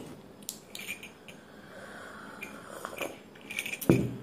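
Spoon and ceramic mug of hot Horlicks being handled: scattered light clinks and taps, with a louder knock about four seconds in.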